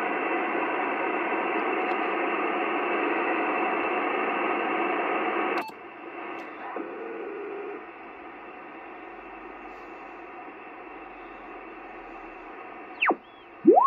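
Receiver noise from a Yaesu FT-920 HF transceiver: a steady hiss of band noise. About six seconds in, a click as the radio is switched to the 12-metre band, after which the hiss is quieter. Near the end, a whistle sweeps down and back up as the tuning dial crosses a carrier.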